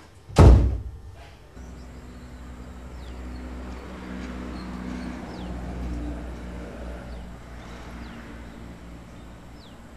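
A single loud thump about half a second in, then a steady low drone with several short, falling bird chirps over it.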